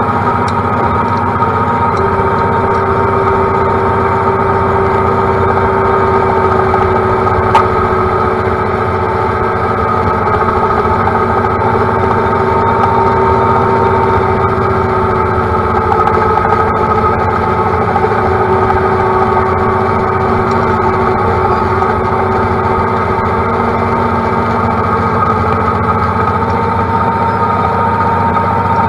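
A John Deere compact tractor's diesel engine runs steadily while mowing, heard from the operator's seat, with a steady hum carrying a few held tones. A single sharp click comes about seven and a half seconds in.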